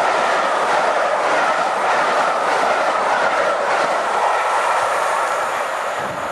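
Passenger coaches of a train rushing past close by, their wheels clicking over the rail joints. The rush fades near the end as the last coach goes by.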